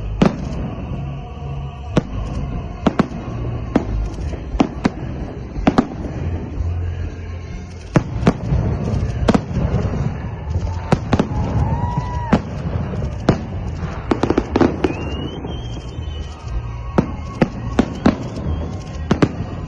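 Fireworks display: sharp bangs of shells bursting at irregular intervals, some in quick clusters, over a steady low rumble, with a couple of brief whistles near the middle.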